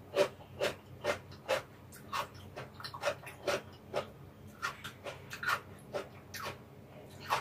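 Close-miked chewing of food: short, wet mouth sounds repeating about twice a second.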